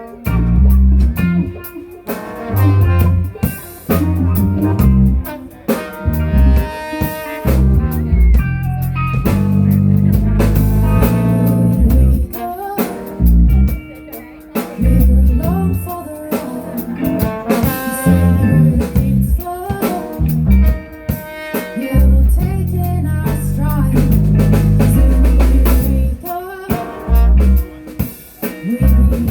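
Band playing a song, with drum kit, guitar and bass guitar.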